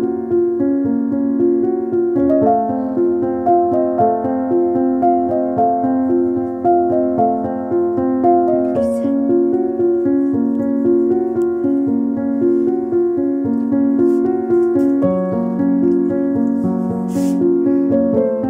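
Background piano music, a continuous melody of shifting notes.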